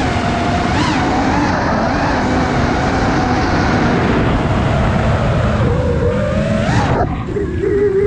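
Brushless motors and propellers of an iFlight Nazgul Evoque F5 5-inch FPV quadcopter whining, heard from the onboard camera with wind rush. The pitch rises and falls with throttle, climbing sharply about seven seconds in and then dropping abruptly.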